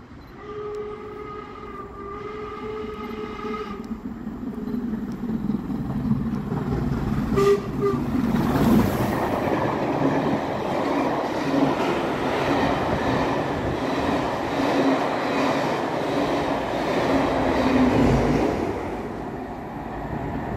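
Steam whistle of the Black Five steam locomotive: one steady blast of about three seconds, then a short double toot as the engine approaches. The train then passes close by, a loud rush of locomotive and carriages with a repeating beat and a louder low rumble near the end.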